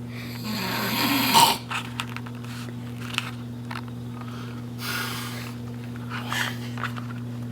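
A sleeping man snoring: one loud snore that swells over about a second and a half, then a softer breath about five seconds in.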